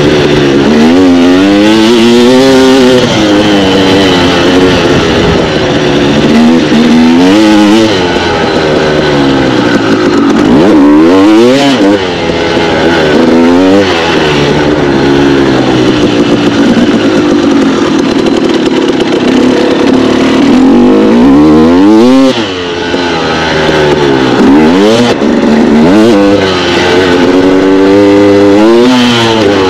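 A 2016 KTM 250 XC's two-stroke single-cylinder engine under hard riding, its pitch climbing and falling over and over as the rider accelerates, shifts and rolls off the throttle, heard up close from the bike.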